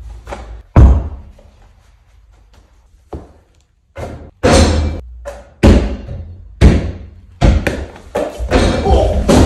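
A basketball thudding on the floor and banging off the rim and backboard of a portable basketball hoop: a string of about a dozen sharp impacts at uneven spacing, each ringing on briefly.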